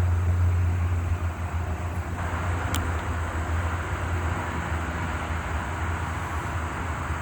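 Steady low rumble with an even background hiss, and one faint high tick about three seconds in.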